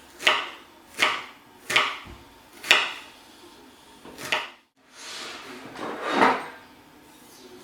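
Kitchen knife slicing through a shallot onto a chopping board: five sharp strikes roughly a second apart, then a longer, drawn-out cutting sound near the end.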